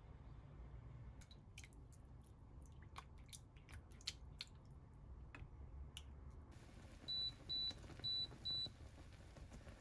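Four short, high electronic beeps about half a second apart, starting about seven seconds in, after a stretch of faint scattered clicks and light taps.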